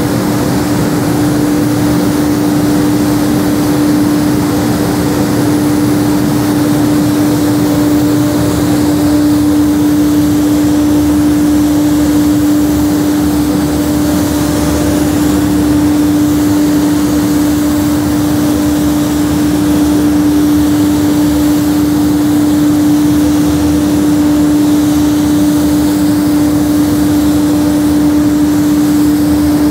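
Spray-painting booth machinery running steadily, a constant droning hum over an even rush of air, with the hiss of a compressed-air spray gun applying matt paint.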